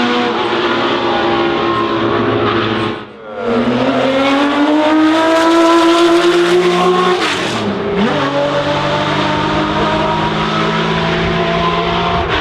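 Historic racing car engine running hard. The sound drops out briefly about three seconds in, then the pitch climbs for about four seconds, falls sharply just before eight seconds, and holds steady after that.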